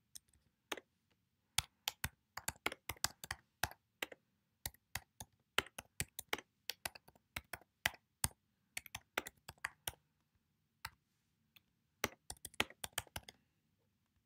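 Typing on a computer keyboard: irregular key clicks in short runs, thinning out for about two seconds past the middle, then a quick flurry near the end.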